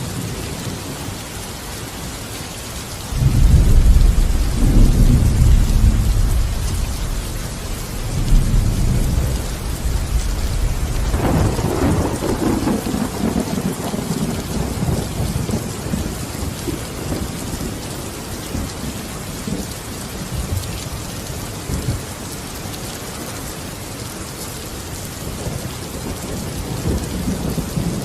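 Steady heavy rain with thunder. A deep rumble breaks in suddenly about three seconds in and rolls on for several seconds. A second, sharper crack and rumble comes near the middle and slowly dies away under the rain.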